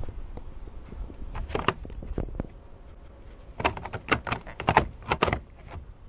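Handling noise: a string of light knocks and clicks, a few about a second and a half in, then a quicker run of them from about three and a half to five seconds in.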